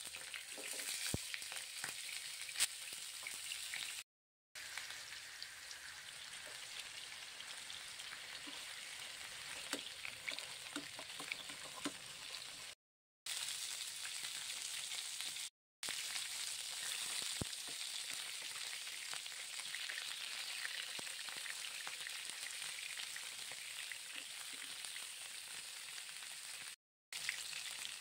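Chicken thighs sizzling and crackling steadily as they fry in oil in a nonstick frying pan, being browned to light golden. The sound drops out for brief moments several times.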